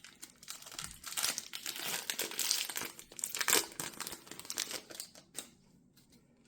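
A trading-card pack's plastic wrapper being torn open and crinkled by hand, a dense run of crackling that stops about five and a half seconds in.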